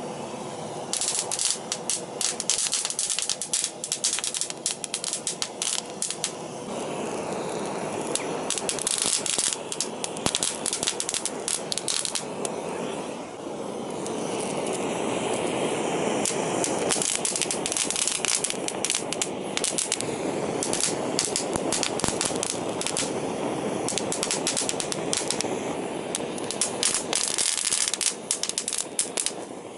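Common ivy (Hedera helix) leaves crackling with rapid clusters of sharp pops as steam builds inside the thick epidermis and blows pinpoint holes through the leaf, over the steady rushing of a gas torch flame. The pops start about a second in, thin out around the middle and come thick again in the second half.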